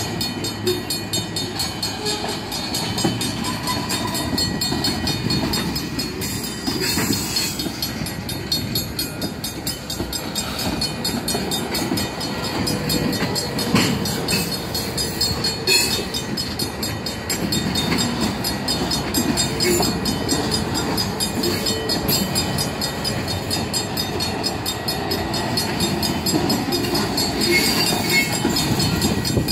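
Freight cars rolling past, their wheels rumbling and clacking over the rails, with a couple of sharp clanks about halfway through. A Safetran mechanical crossing bell rings steadily over the train noise.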